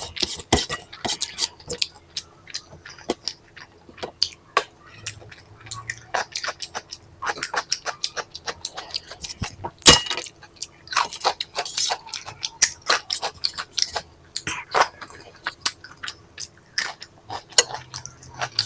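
Close-miked eating sounds: chewing of rice and egg curry with quick mouth clicks and smacks, and now and then a clink on the plate.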